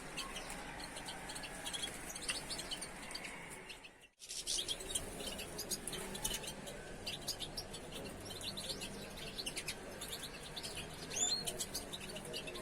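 Many small cage birds chirping and twittering in an aviary, as a dense run of short high calls. The sound cuts out briefly about four seconds in.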